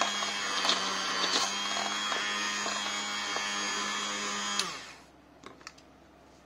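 Electric hand (immersion) blender running steadily with a motor whine as it churns yogurt in a steel bowl. About three-quarters of the way through it is switched off, and the pitch falls as the motor winds down. A couple of faint clicks follow.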